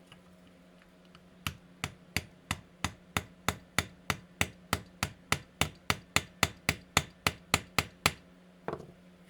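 A steady run of about twenty sharp strikes, roughly three a second, ending with one duller knock.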